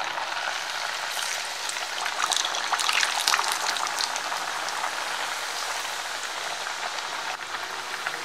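Hot oil sizzling and crackling steadily as a coconut-jaggery filled kayi puri (sajappa) deep-fries in a steel kadai on a medium flame. The crackle grows louder and busier for a few seconds about a second in, then settles back.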